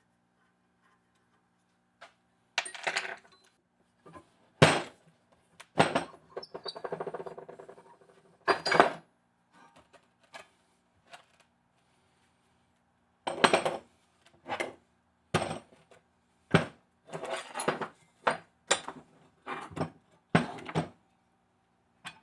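Small metal parts and hand tools clinking and knocking while a tool is being taken apart: a series of sharp, irregular clicks and taps, with a short fast rattle about seven seconds in.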